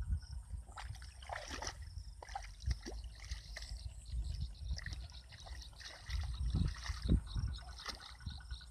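Footsteps squelching and sloshing through shallow muddy water, with irregular splashes as feet are pulled from the mud.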